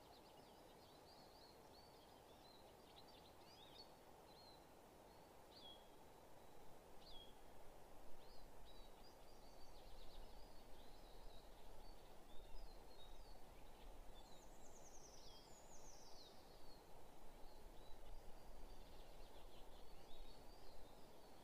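Small songbirds chirping and singing faintly in a forest, many short high calls over a steady low hiss, with a couple of falling trills about two-thirds of the way through.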